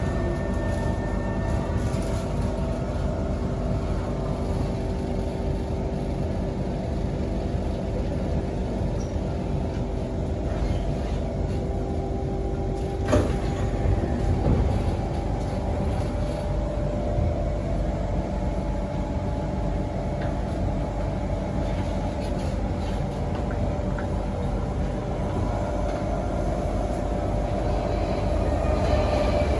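Inside a Kawasaki Heavy Industries C151 metro car running on the line: steady rumble and wheel noise with the whine of the traction equipment, its tones changing as the train slows into a station. There is a single sharp knock about halfway through. Near the end the train stands at the platform with its doors open.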